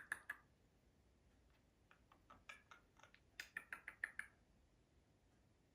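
Blue-and-gold macaw making a quick run of dry clicks, about six a second, for about two seconds from a little past the middle; a few clicks also end just at the start.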